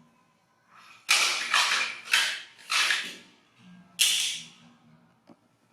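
Baby monkey coughing hard: five sudden, harsh bursts, four close together in the first two seconds and a last one about a second later.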